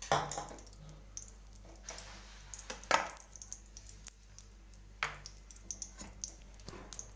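Ghee melting and crackling faintly in a hot metal kadhai, with a few sharp knocks against the pan, the loudest about three seconds in.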